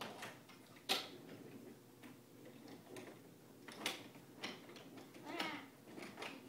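Toy trains clicking and knocking against the track and each other as a small child pushes them by hand, with a sharp click about a second in and another about four seconds in. A short child's vocal sound comes about five seconds in.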